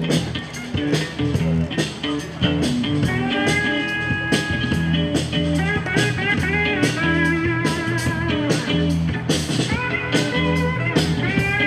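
Live band of electric guitars, bass, drums and keyboard playing, with a steady drum beat and, from about three seconds in, a lead guitar line of bent notes.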